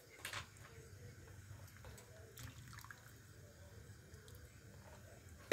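Faint liquid sounds of a metal spatula working coconut-milk curry in a cast-iron wok, with a few light drips and ticks over a low steady hum, and a sharper click at the very end.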